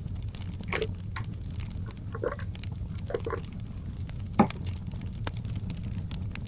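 Crackling wood fire: scattered small pops and crackles over a steady low rumble, with one sharper pop about four seconds in.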